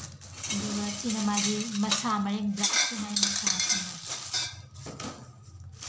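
Plastic-wrapped metal tubes of a clothes-hanging stand knocking and clinking against each other as they are handled, with plastic wrapping rustling.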